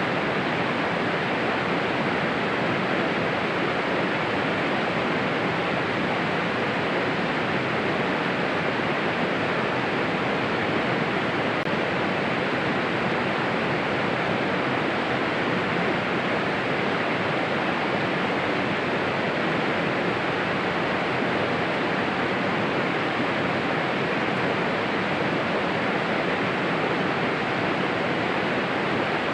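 Steady, even rushing noise that holds the same level throughout, like heavy rain or running water.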